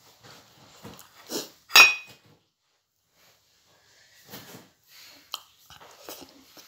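Eating noodles with wooden chopsticks from a ceramic bowl: a few sharp clinks of the chopsticks against the bowl, the loudest about two seconds in, then quieter eating sounds as the noodles are lifted to the mouth.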